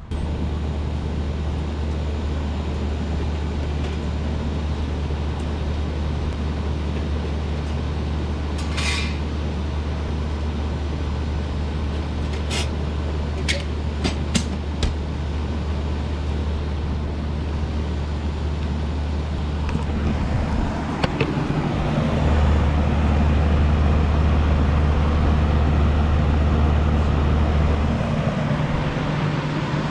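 Road and engine noise inside a moving vehicle: a steady low drone, with a few sharp clicks near the middle. The drone grows louder about two-thirds of the way through.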